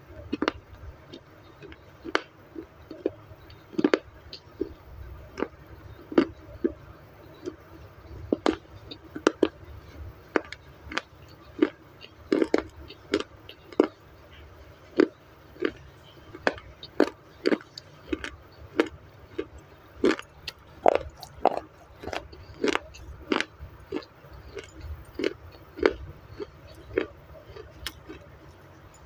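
Crunchy chewing of baked clay (clay roti) right at a lapel microphone: irregular sharp crunches, about one or two a second, over a low rumble.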